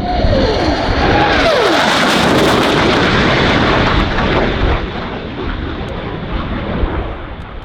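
Military jets in combat spread passing low, a loud engine roar whose pitch falls as they go by, then easing off in the last few seconds.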